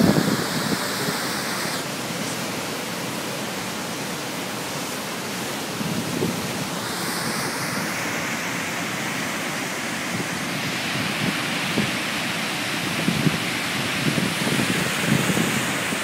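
Waterfall rushing steadily as it plunges down a rock face into a pool below, heard from the top of the falls. Gusts of wind buffet the microphone now and then, more often near the end.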